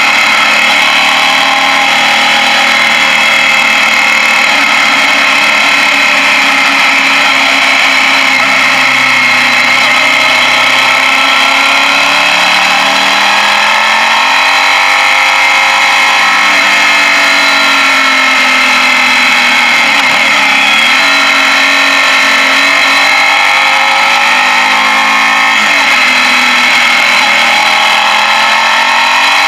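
A Suzuki Gladius's 645 cc V-twin motorcycle engine running on the move, its revs rising and falling through the bends, with brief dips about twenty and twenty-six seconds in. Steady wind rush on the helmet-mounted microphone sits over it.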